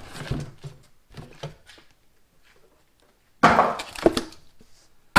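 Cardboard box rustling and scraping as a new carburetor is worked out of it, with faint clicks at first. About three and a half seconds in there is a loud scrape with a knock as the box is pulled off the carburetor.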